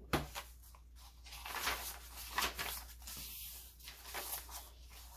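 Paper pages of a handmade journal rustling and crinkling as they are turned by hand, in uneven soft brushes, with a short tap just after the start.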